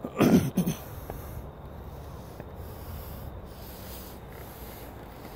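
A short breathy vocal sound, like a snort or exhale, then steady low background noise with faint rubbing.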